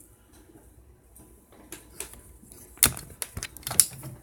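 Handling on a workbench: a quick run of light clicks and taps starting about halfway through, with two sharp, loud clicks near the end.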